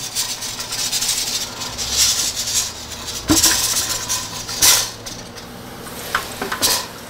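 A stainless-steel pressure cooker being moved off the stove and set down in a steel sink, with clanks of metal pot and lid about two, three and four and a half seconds in. A steady hiss runs under it and drops away about five seconds in.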